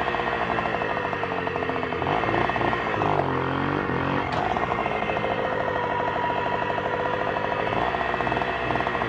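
Hercules Prima 6 moped's small two-stroke engine revving hard, the revs dropping and climbing again a couple of times as the clutch is worked for wheelie attempts.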